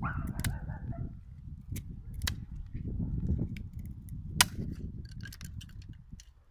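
A cat's claws clicking and scratching on tree bark as it climbs through the branches: a few sharp clicks, the loudest about four seconds in, then a run of small ticks near the end, over a low rumble.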